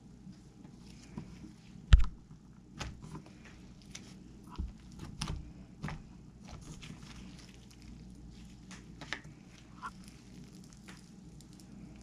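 Handmade slime being squeezed and stretched by hand, giving irregular popping and squelching clicks, with one loud thud about two seconds in.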